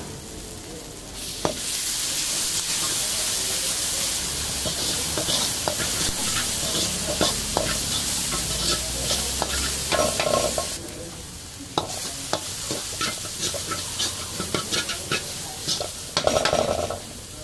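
Food sizzling and frying in a hot pan while a metal ladle scrapes and clinks against it as it is stirred. The frying hiss is loudest from about a second in until about two-thirds of the way through, then drops lower while the scraping carries on.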